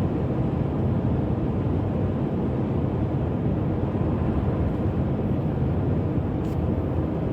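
Steady cab noise of a Ford F-350 diesel pickup cruising at highway speed: an even low drone of engine and tyres on the road, unchanging throughout.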